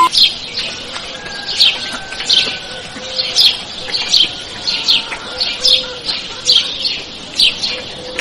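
Chicks peeping over and over: short, high calls that fall in pitch, about two a second at an uneven pace.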